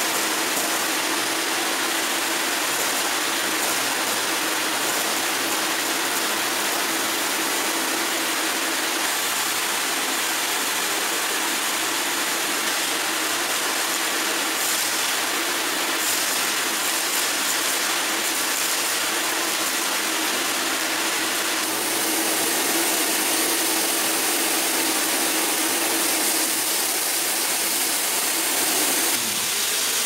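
Vacuum cleaner running steadily, its hose nozzle sucking up rolled oats and small grains, which rattle and crackle as they are drawn into the hose.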